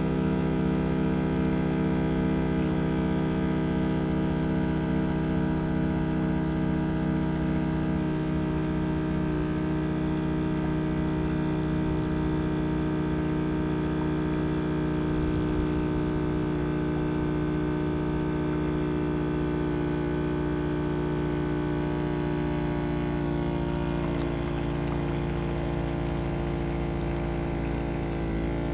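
Boat engine running steadily as a low, even drone, its pitch dropping slightly about 23 seconds in.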